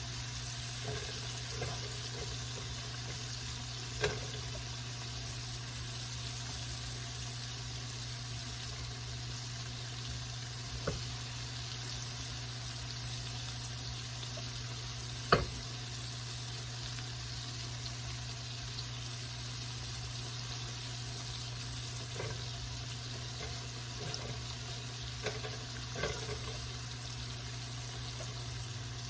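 Battered oyster mushroom pieces frying in hot oil with a steady sizzle. A few short sharp knocks sound over it, the loudest about halfway through.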